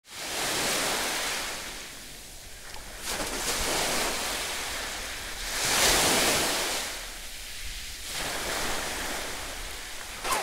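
Sea surf washing on a shallow beach, rising and falling in slow swells every few seconds and loudest about six seconds in.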